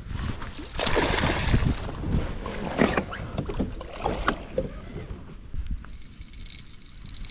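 Water splashing and sloshing around a small boat: a louder rush of water about a second in, then scattered knocks and clicks.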